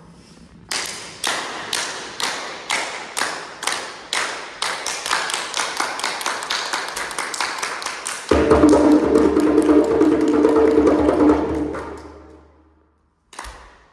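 Hand claps keeping a steady beat, about two a second, speeding up into fast, dense clapping; about eight seconds in a djembe comes in with a loud, fast roll that fades out, followed by a single knock near the end.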